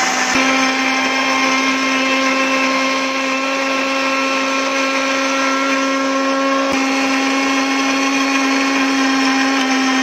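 Electric mixer grinder with a steel jar running at steady speed, a continuous motor whine, grinding dry cumin and coriander. There is a brief click about half a second in and another near seven seconds.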